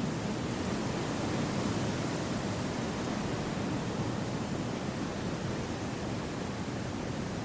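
Wind blowing through forest trees: a steady, even rushing noise with no gusts, lulls or other events.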